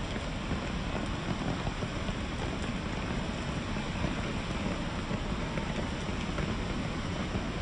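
Steady rain falling on a steel suspension footbridge's chequer-plate deck and the forest around it.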